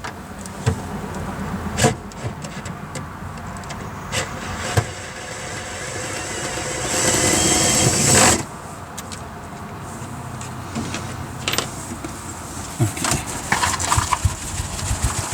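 A power drill/driver running on a screw, with knocks and clicks from the work; its noise builds to a peak about eight seconds in and stops abruptly.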